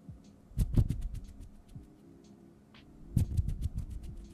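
Close-up ASMR hand sounds: fingers and nails plucking and flicking right at a Tascam recorder's stereo microphones. They make quick flurries of crisp clicks with soft thumps, one burst just under a second in and another from about three seconds in.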